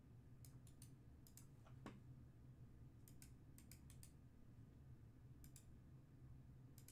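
Faint keyboard and mouse clicks at a computer, in short clusters of two to four, over a low steady hum.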